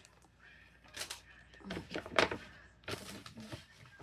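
Plastic toy capsule and its small plastic bags being handled: a run of short crinkles and knocks, loudest about two seconds in.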